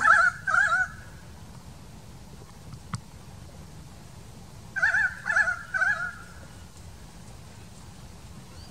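Channel-billed cuckoo calling: loud, wavering notes in groups of three. A group ends just at the start and a full group comes about five seconds in.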